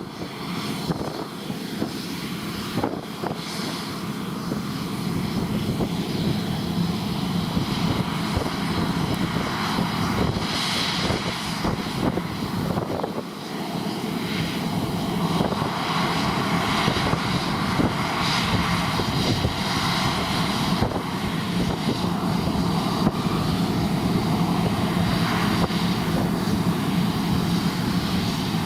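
New Holland combine harvester running steadily while cutting oats: a continuous engine drone with the rush of the threshing gear.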